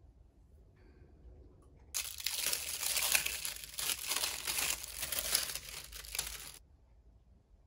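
Clear plastic wrapping crinkling and tearing as it is pulled off a spool of black knotting cord. It starts suddenly about two seconds in and stops abruptly about a second before the end.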